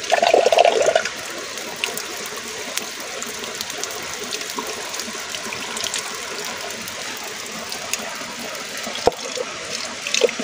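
Water sloshed by hand inside an aluminium cooking pot, loudest in a splash during the first second, over the steady run of spring water across rock. Midway the water is poured out of the pot onto the rock, with small splashes and drips, a sharp knock about nine seconds in, and more sloshing near the end.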